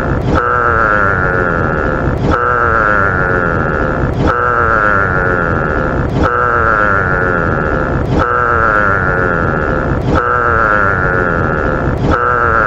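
Giraffe call played as a sound effect: the same call of about two seconds repeats back to back, each repeat starting with a short click where the loop joins.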